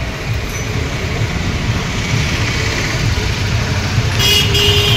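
Street traffic: a steady low rumble of passing motorcycles and other motor vehicles, slowly growing louder. A horn sounds near the end.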